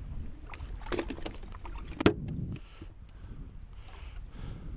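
Water and wind noise around a small fishing boat, with a few light clicks about a second in and one sharp knock just after two seconds, as of tackle or gear striking the boat.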